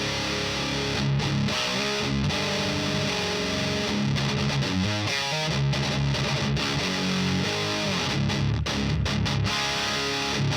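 High-gain distorted electric guitar riffing through a Diezel VH4 preamp pedal, with sustained low notes and chords played continuously.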